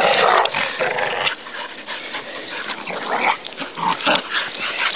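Dogs play-fighting, making rough, noisy growls and snarls in irregular bursts. The first second or so is the loudest.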